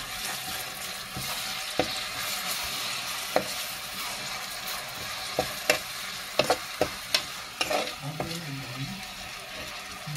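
Chopped tomato, onion and garlic-chilli paste sizzling in hot oil in a frying pan as a spatula stirs it, sautéing the tomato into the onion masala. Sharp knocks and scrapes of the spatula against the pan come now and then, most often in the second half.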